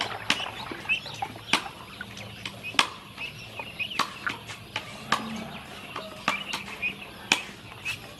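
Ducklings peeping in many short, high chirps as they swim in a plastic tub of water, with irregular sharp clicks scattered among the calls.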